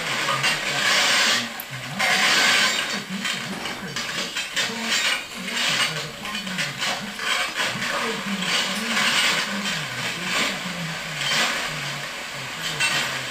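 Steel shovels scraping and digging through hot coals, ash and heated iron plates in a hangi fire pit, in repeated rough, gritty bursts.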